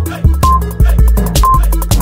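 Background electronic hip-hop music with a heavy bass line and a steady drum beat. A short high beep sounds about once a second, counting down the exercise timer.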